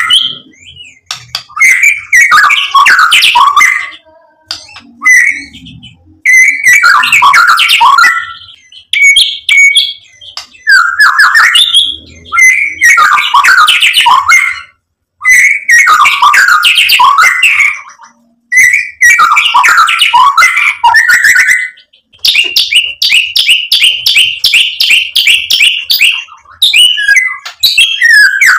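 White-rumped shama (murai batu) singing loudly in phrases of fast, varied whistles and chattering notes, each about two seconds long with short pauses between. About two-thirds of the way through it gives a rapid trill on one pitch for about four seconds.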